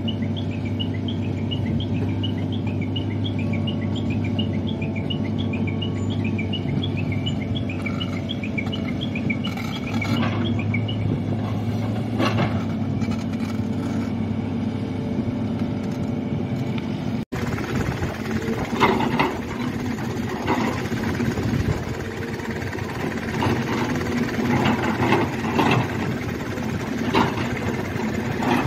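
JCB tracked excavator's diesel engine running steadily under load, with a high chirping repeated about three times a second for the first ten seconds or so. After a cut about 17 seconds in, the excavator digs a trench, its engine running with irregular knocks and scrapes of the bucket in the soil.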